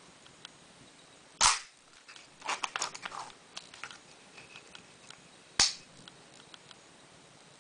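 FED-2 rangefinder camera's cloth focal-plane shutter firing twice, about four seconds apart, each a loud sharp snap. In between comes a quick run of smaller ratcheting clicks and a few faint ticks as the camera's knobs are worked.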